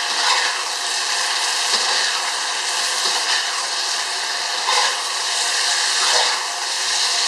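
Thick sauce sizzling in a steel wok while fried potato pieces are stirred and tossed with a spatula, with occasional scrapes and knocks of the spatula against the pan.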